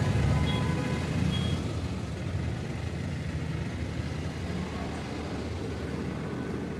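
Steady low background rumble, a little louder in the first second and a half, with a few faint short high tones in that stretch.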